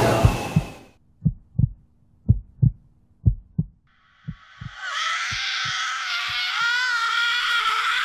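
Heartbeat sound effect: paired low thumps, lub-dub, about once a second. A noisy rush fades out in the first second, and a loud, sustained, wavering high sound comes in about five seconds in.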